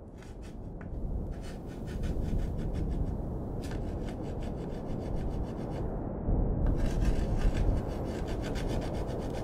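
Crayon scribbling hard across the rough surface of a large cylinder: quick, scratchy rubbing strokes in long runs, with a short pause a little after the middle, over a steady low rumble. The sound fades in over the first second or two.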